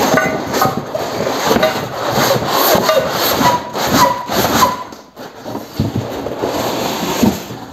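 Cardboard boxes scraping and rubbing against each other as a snug inner box is slid out of an outer cardboard carton, with a few short squeaks about four seconds in.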